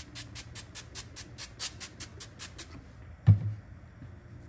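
A quick, even run of sharp clicks, about six a second, that stops a little under three seconds in, followed by one dull thump.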